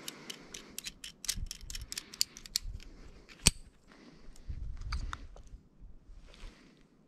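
Climbing hardware and rope being handled at a belay: quick metallic clicks of a belay device and carabiner in the first few seconds, one sharper click about three and a half seconds in, then softer rustling of rope and clothing.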